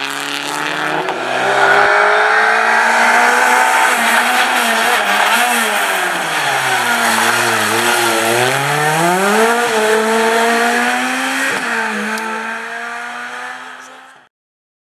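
Rally car engines at speed, mainly a Ford Fiesta rally car: the engine note falls as the car slows, then climbs as it accelerates away, with a gear change about two-thirds of the way in. The sound fades out near the end.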